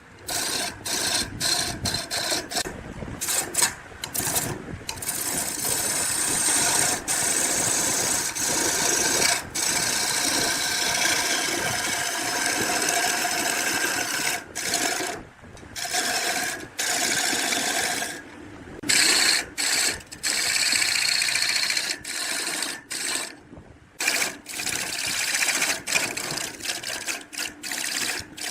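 A small power tool running as it works wood, cutting off briefly a few times.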